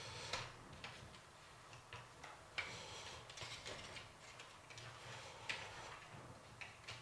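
Faint, irregular clicks and handling noise as a flexible LED strip is fitted and pressed around the inside of a 3D-printed plastic lamp housing.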